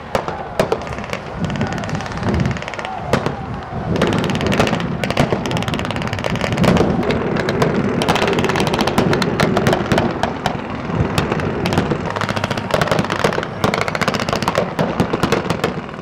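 Blank gunfire from a mock battle: many rapid, irregular shots from rifles and machine guns, overlapping one another. The shots are sparse at first and become dense from about four seconds in.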